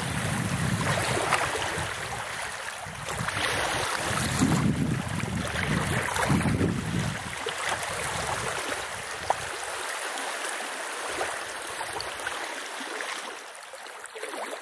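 Small lake waves washing onto a sandy shore, a steady rush of surf that swells and eases every two or three seconds, fading out at the end.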